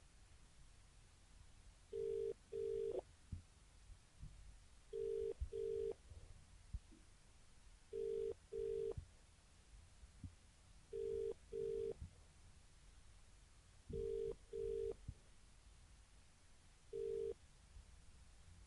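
Telephone ringback tone heard by the caller after dialling: a low two-note buzz in double rings, two short bursts every three seconds, five double rings and then a single burst near the end. Faint line hiss and soft clicks sound between the rings.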